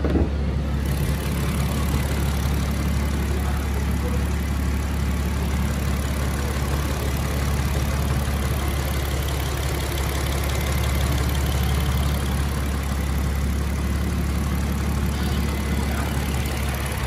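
Audi A7 3.0T's supercharged 3.0-litre V6 idling steadily, heard with the hood open.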